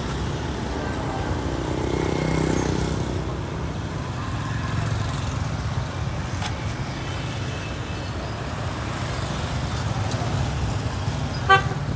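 Street traffic: motorbike and scooter engines passing close by over a steady low traffic rumble, with a short, sharp pitched sound just before the end.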